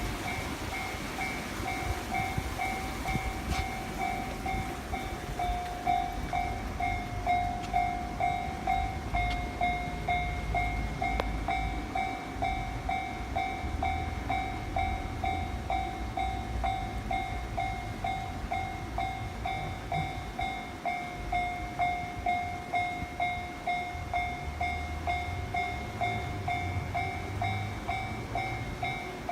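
Japanese railway level-crossing warning bell ringing over and over in an even ding-ding, about two rings a second. A train rumbles past underneath, swelling and fading.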